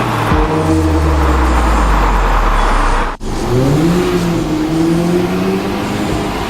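Modified Audi A3 S-Line's engine and exhaust under way: a low, steady drone for about three seconds, which cuts out for an instant. Then the engine note climbs and holds as the car accelerates.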